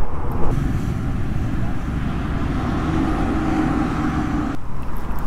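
Royal Enfield Classic 350's single-cylinder engine running under way on the highway, mixed with steady wind and road noise. The sound changes abruptly near the end.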